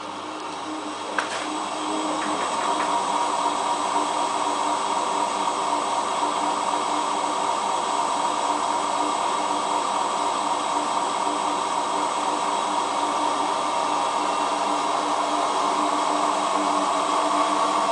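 Hotpoint Ultima WT960 washing machine on spin: a steady motor and drum whine that builds over the first couple of seconds and then holds, with a single click about a second in. The spin noise is what the owner puts down to worn-out bearings.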